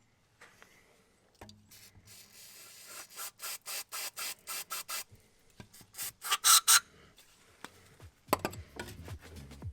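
Hand scraping strokes on brake parts, going back and forth at about five strokes a second, with three louder strokes about six seconds in.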